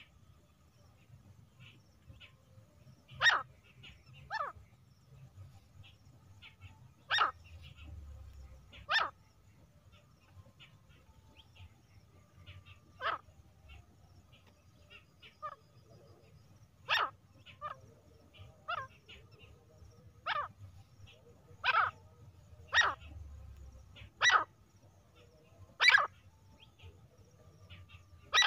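Female grey francolin giving short, sharp single call notes, about fifteen of them at irregular gaps of one to four seconds.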